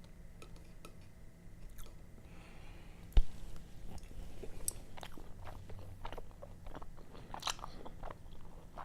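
Close-miked chewing and wet mouth clicks of someone eating sashimi. A single sharp thump about three seconds in is the loudest sound.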